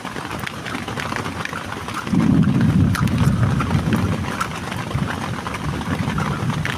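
Heavy rain falling, with many separate drops striking close by. About two seconds in, a loud low rumble sets in and keeps going under the rain.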